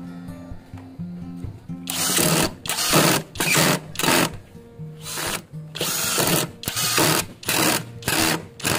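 Lotus cordless brushless drill boring pilot holes into pine. It runs in short bursts of under a second each, about nine in all, starting about two seconds in.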